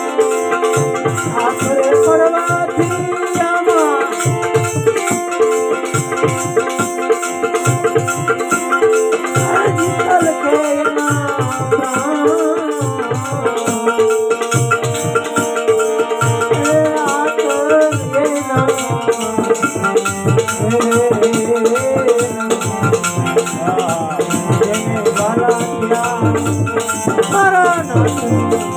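Gujarati devotional bhajan music: a fast, even shaken-rattle percussion over a repeating drum beat, with held notes and a wavering melody line above.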